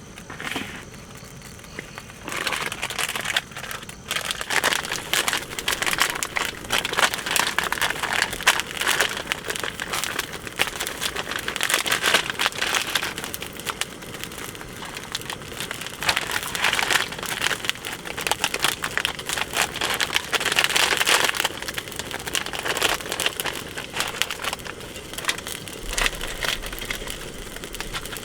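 Irregular crinkling and crackling of handled plastic packaging, starting about two seconds in and going on with many small crackles.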